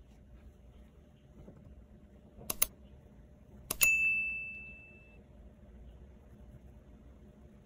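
Two quick light clicks, then a sharp tap that rings out with one clear high tone fading over about a second: a small hard object knocked against something that rings, like glass or metal.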